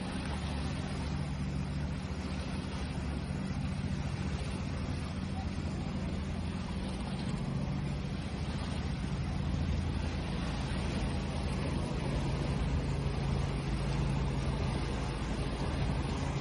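A steady low engine hum over a constant wash of noise, growing a little louder toward the end.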